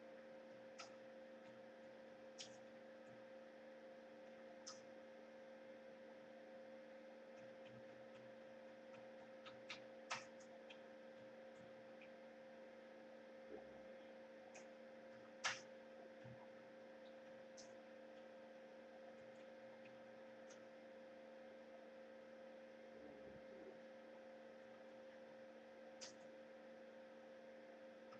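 Near silence: a steady electrical hum from a security camera's audio pickup, with a few faint scattered clicks, the sharpest about halfway through.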